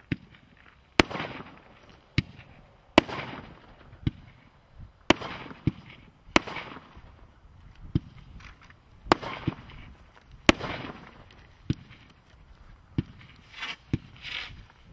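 Fireworks International Oriental Samurai firework cake firing shot after shot, with a sharp bang about every second. Many bangs are followed by a short hissing fizz.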